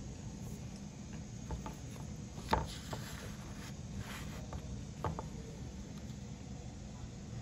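Metal spoon scooping through cold, chunky powdered starch in a glass bowl: a few short scrapes and crunching clicks, the loudest about two and a half seconds in, over a steady low hum.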